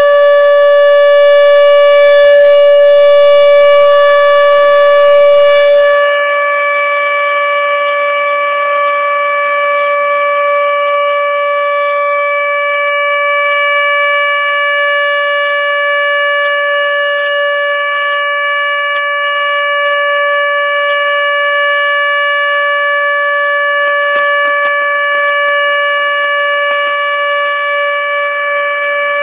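Nuclear power plant emergency warning siren sounding a loud, steady tone during a test, holding one pitch without rising or falling. About six seconds in it turns slightly quieter and duller.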